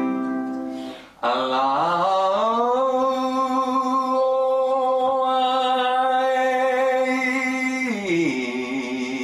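A man sings a vowel-opening exercise with acoustic guitar. He holds a note, breaks off briefly about a second in, then slides up into a long steady held note that drops away in pitch near the end.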